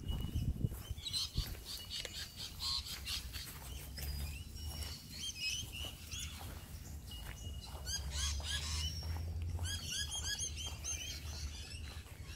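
Wild birds chirping: many short, quick chirps repeated in runs, thickest near the end, with a few brief held whistle notes.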